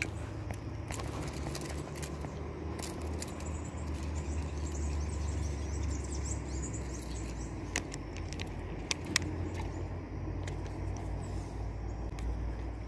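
Kayak being paddled down a river: a steady low rumble with a few sharp knocks in the second half.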